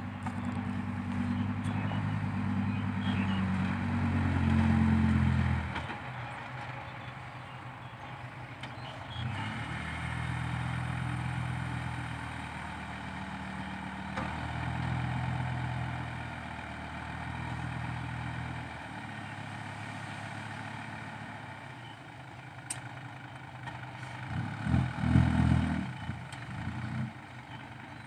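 Diesel tipper truck engine, working hard for about the first five seconds as it drives off, then running lower with several swells in engine speed, and revving up again near the end as the truck tips its load of soil with the hydraulic bed raised.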